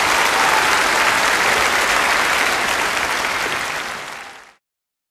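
Large audience applauding, a dense steady clatter of many hands that fades out and stops about four and a half seconds in.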